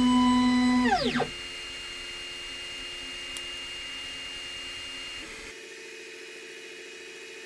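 Ultimaker 2 Extended 3D printer's stepper motor whining at a steady pitch, then sliding down in pitch and stopping about a second in as the move ends. After that, quieter steady tones from the printer's fans and motors.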